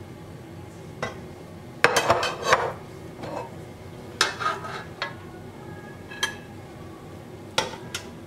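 Metal slotted skimmer scraping and knocking against a cooking pot and a ceramic plate as cooked rice is scooped out. The clinks and scrapes come in about five short clusters, the loudest about two seconds in.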